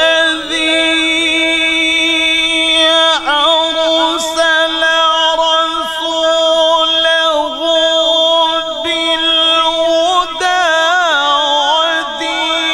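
A male Quran reciter (qari) holding long, melismatic notes in tajweed-style recitation, his voice amplified through a microphone, with wavering ornaments on a steady pitch. It breaks briefly about three seconds in and again near ten seconds, then carries on.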